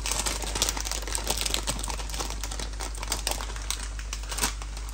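Crinkling of plastic packaging being handled, a dense run of small irregular crackles.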